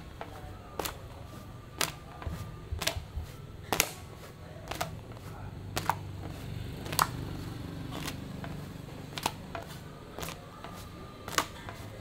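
Roti canai being worked at a street stall: sharp taps about once a second over a steady low hum.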